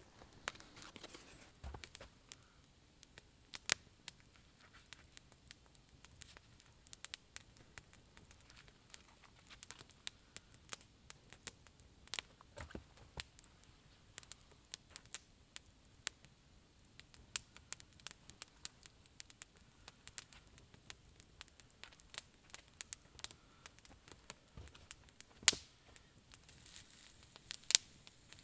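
Wood campfire crackling, with irregular sharp pops and two louder pops near the end.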